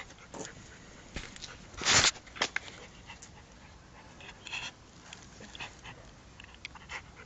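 West Highland white terrier breathing and sniffing close to the microphone, with a short loud burst of noise about two seconds in and a few scattered clicks.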